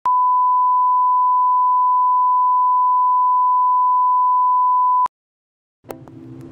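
Steady 1 kHz reference test tone, the line-up beep that goes with colour bars, held for about five seconds and cutting off suddenly. After a short silence, a click and a low rumble begin near the end.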